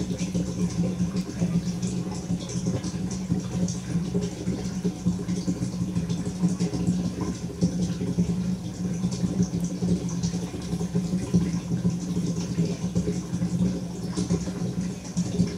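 A steady low mechanical hum, unchanging throughout, with a light scattered crackle over it.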